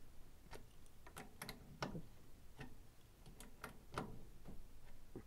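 About a dozen light, irregularly spaced metallic clicks as the nut on an Atlas lathe's change-gear stud is tightened down, with the gear mesh set by a business-card spacer.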